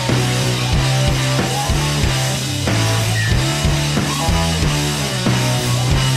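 Background rock music with guitar, a steady beat and a held bass line.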